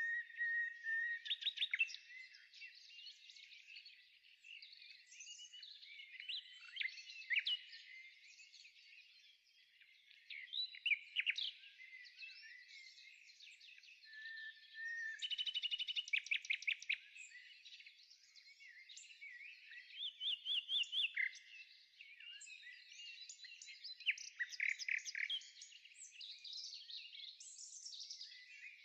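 Birds chirping and singing over one another: short chirps, quick rising and falling whistles, and fast trills of repeated notes, all high-pitched.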